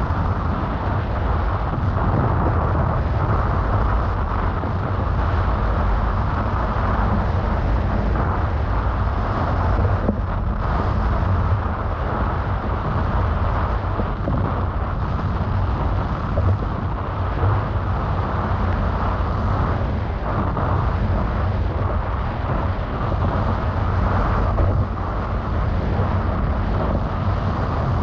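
Wind buffeting the microphone of a camera carried while windfoiling: a steady, unbroken rush of noise, heaviest in the low end.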